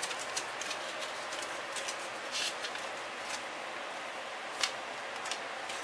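About eight light clicks and taps, scattered irregularly over a steady hiss of room noise, the loudest a little past the middle.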